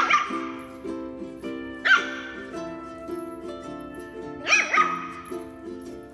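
Red toy poodle puppies at play yapping in short, high-pitched barks: once at the start, again about two seconds in, and a double yap about four and a half seconds in. Steady background music plays underneath.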